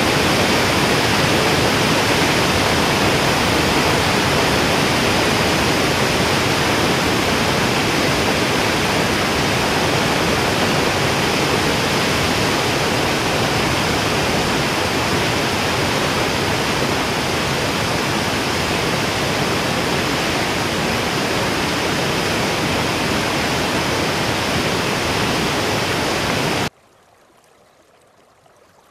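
Steady rushing of running water, even and unbroken, which cuts off abruptly near the end, leaving only a faint hush.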